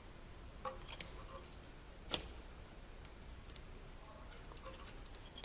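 A few faint, scattered metallic clicks and taps of hand tools on an engine's valve gear: a wrench on the adjuster lock nut and a feeler gauge, while the valve clearance is being set. There is a sharper click about two seconds in and a quick run of small ticks near the end.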